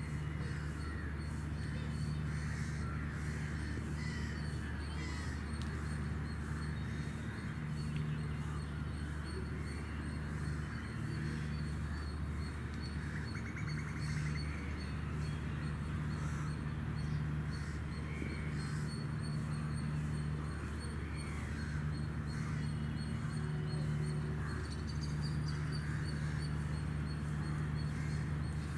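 Birds calling and chirping throughout, over a steady low hum and a thin, steady high-pitched tone.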